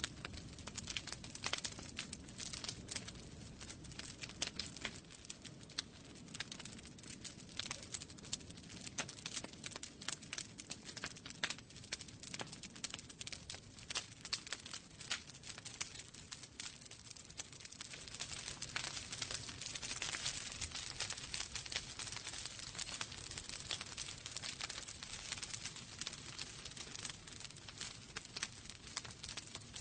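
Wood fire crackling in a fireplace: dense, irregular snaps and pops over a soft steady hiss and low rumble of the flames, the hiss swelling a little around the middle.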